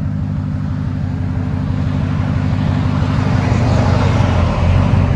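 Ram 1500's 5.7-litre Hemi V8 running through a Flowmaster Super 10 muffler and dual 5-inch tips. The exhaust note grows steadily louder and fuller from about two seconds in, then holds a strong steady drone near the end.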